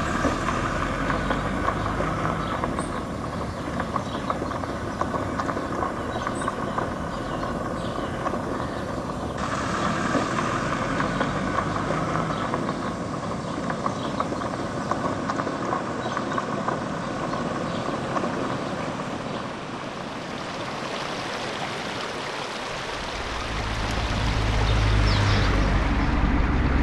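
Road noise from a vehicle driving along a gravel dirt road: a steady run of engine and tyre noise with fine crackling from the gravel. The sound changes abruptly about nine seconds in, and a deep low rumble rises near the end.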